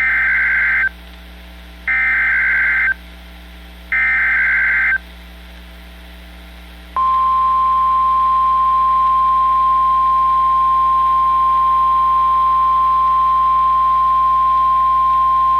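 Emergency Alert System SAME header: three short bursts of warbling data tones, two seconds apart. About seven seconds in, the single steady weather-radio warning alarm tone (1050 Hz) starts and holds, signalling that a tornado warning is about to be read.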